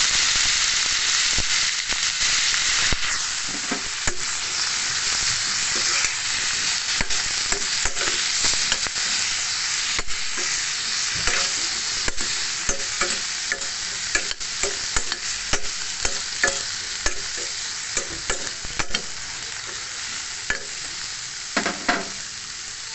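Green beans, potato and hotdog pieces sizzling steadily in hot oil in a pan while being stirred, the utensil scraping and knocking against the pan in short strokes that come more often in the second half. Just before the end there is one longer, louder scrape.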